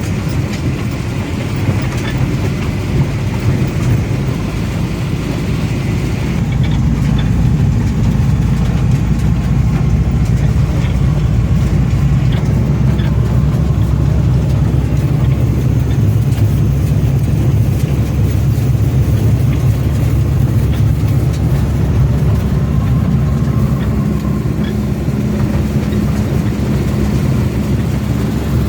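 Van driving: steady engine and road noise, heard from inside the vehicle.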